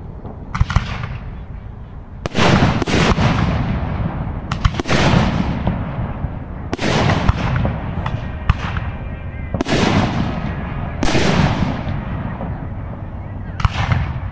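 Aerial fireworks shells bursting overhead, about eight sharp booms spaced one to three seconds apart, each trailing off in a long rumbling echo.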